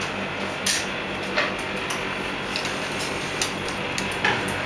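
Scattered sharp clicks and light taps of a screwdriver, small screws and hand tools being handled on a workbench, about six in all, over a steady hiss and low hum.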